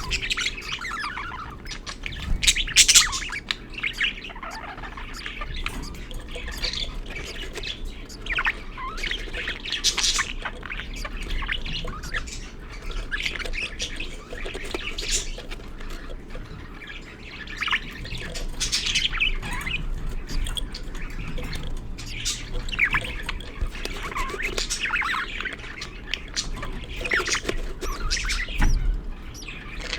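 Budgerigars chirping and squawking in short calls, one after another every second or so, over a faint low hum.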